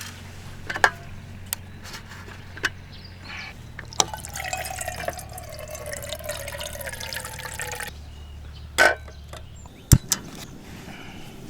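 Liquid poured steadily into a container for about four seconds, among a few sharp clinks and knocks of cookware. A low steady hum underneath stops just after a loud knock near the end.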